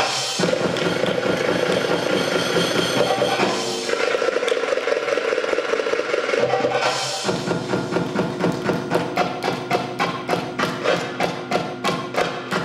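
Belly dance music: a held melodic passage, then about seven seconds in a steady drum beat takes over at roughly three strikes a second.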